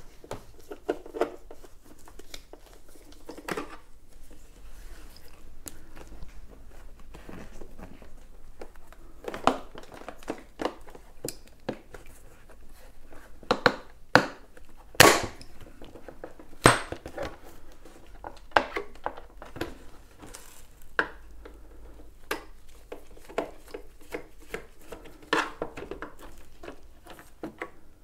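Screwdriver backing out the screws of an electric unicycle's side cover, with hands handling the shell: scattered small clicks, scrapes and knocks, a few sharper clacks about halfway through.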